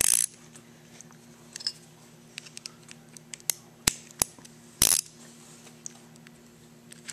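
Sharp metallic clicks and clinks of a socket wrench working the brass main jet of a tractor carburetor and of tools touching the steel workbench. There is a louder clatter at the start, a few crisp clicks around the middle, and another clatter about five seconds in, over a faint steady hum.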